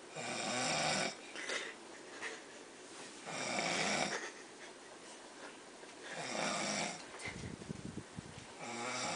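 A person snoring in deep sleep: three loud, rattling snores about three seconds apart, each lasting about a second, followed by a low fluttering rattle before the next breath.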